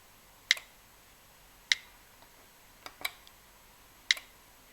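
Smart wall socket switching, with sharp, crisp clicks from its button or relay. There are five in all, about a second apart, and two come close together near the middle.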